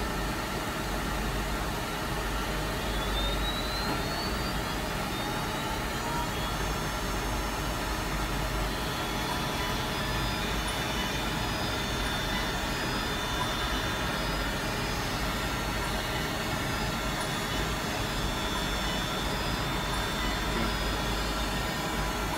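LPKF ProtoMat S63 PCB milling machine cutting the bottom copper layer of a plated circuit board: a steady, loud whirring noise with several high steady tones, and a rising whine about three seconds in.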